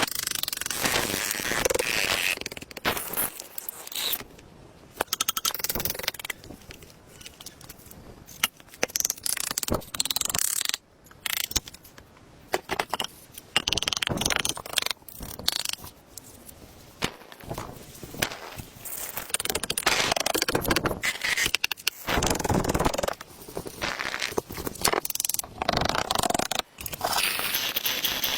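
Hand-tool work on wood: bursts of scraping and rasping strokes, broken by short pauses and sharp knocks.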